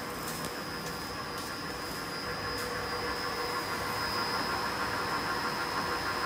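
Shizuoka VHR-SD vertical milling machine running, its spindle drive giving a steady mechanical hum with a constant high whine, with a few light clicks in the first few seconds.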